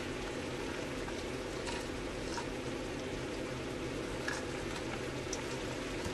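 Pork belly adobo bubbling steadily in a pan of soy and oyster sauce, with a few faint pops.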